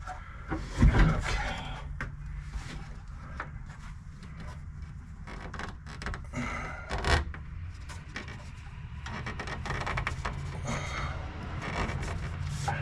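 Rubbing and scraping of flexible tubing being pushed through a tight gap in a car body, with handling knocks, the loudest about a second in and another about seven seconds in. A steady low hum runs underneath.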